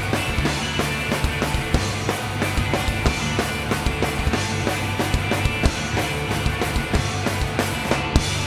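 A live rock band plays an instrumental passage without vocals: a driving drum kit beat with steady snare and bass-drum hits, over electric bass and guitar.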